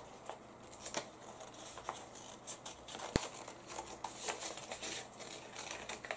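Scissors cutting through a folded sheet of paper: a run of short, irregular snips, with one sharp click about three seconds in.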